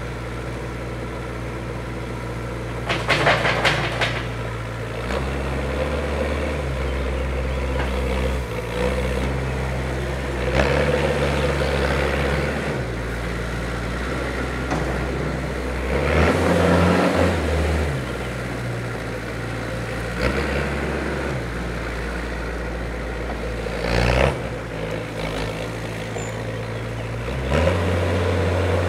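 Norcar A72 mini loader's diesel engine running and revving up and down as the loader drives and works its hydraulics. A rattling clatter about three seconds in and a shorter one near the end of the middle, as a load is tipped into the truck bed.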